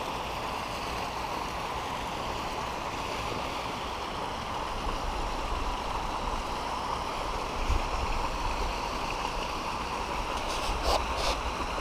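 Steady rush of running water from the inflows pouring into round fish-hatchery rearing tanks.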